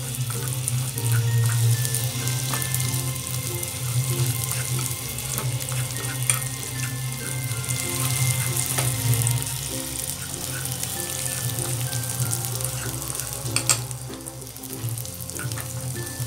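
Chopped coconut, cashews and raisins sizzling as they roast in ghee in a frying pan, stirred with a spatula that clicks and scrapes against the pan now and then. Background music plays underneath.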